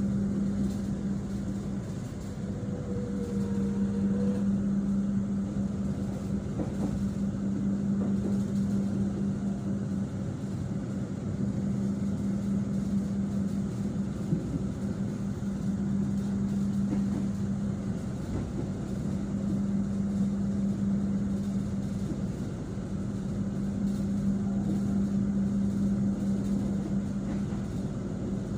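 Steady running noise inside a moving passenger train carriage, under a constant hum.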